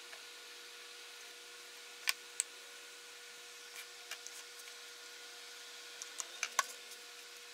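Light knocks of glued wooden boards being set down and pushed together edge to edge, then a quick run of clicks between six and seven seconds in as a one-handed bar clamp is closed and tightened across the joint. A faint steady hum sits underneath throughout.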